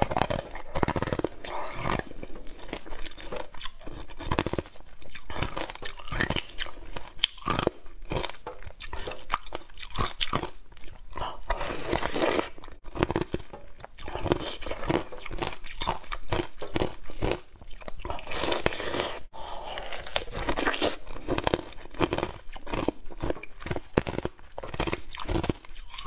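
Close-miked eating sounds: repeated crunchy bites and chewing of strawberries encased in translucent pink coating, in an irregular run of short crunches.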